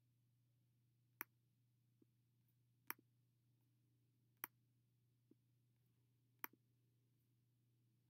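Four sharp single clicks roughly one and a half to two seconds apart, with a few fainter ticks between them, over a faint steady low hum. These are computer mouse clicks made while selecting and placing shapes in a drawing program.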